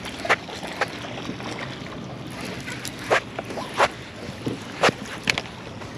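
Irregular sharp slaps of water against a small boat, over a steady wash of wind and water noise.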